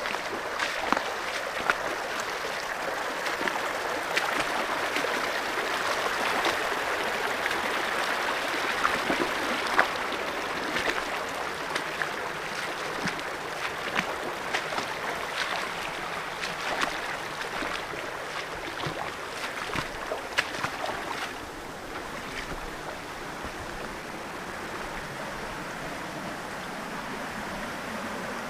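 Shallow creek running over rocks in a steady rush, with frequent sharp clicks and splashes of footsteps as someone wades up it. The water grows a little quieter about three-quarters of the way through.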